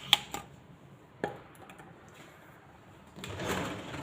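A few sharp clicks and knocks of kitchen items being handled, the loudest just after the start and another about a second later, then about a second of soft scraping noise near the end.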